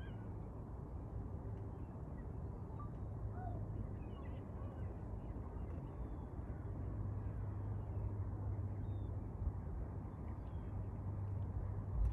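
Scattered short bird calls over a steady low rumble that grows a little louder in the second half.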